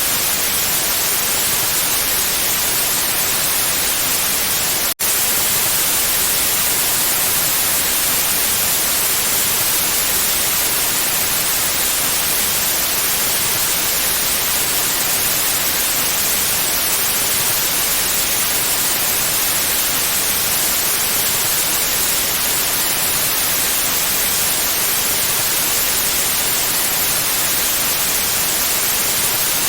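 Steady white noise: an even, unbroken hiss, strongest in the highs. It drops out for a split second about five seconds in.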